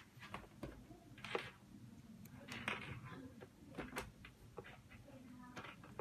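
Cables and plastic RCA plugs being handled and pushed together: scattered small clicks and short rustles.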